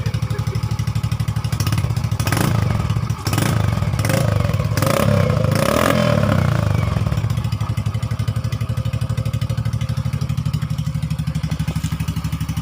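Yamaha X-Ride 125 scooter's single-cylinder engine idling steadily just after being started. A few short noisy bursts come between about two and six seconds in.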